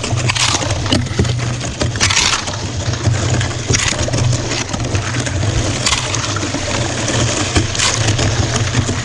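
Kayak paddle strokes in near-freezing lake water: a short splash about every two seconds in an even rhythm, over a steady rush of water and low noise.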